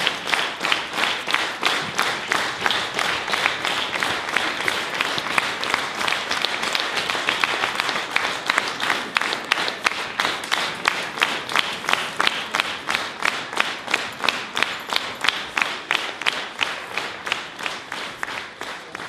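Audience applause, the clapping falling into a steady unison beat of about two to three claps a second and easing off toward the end.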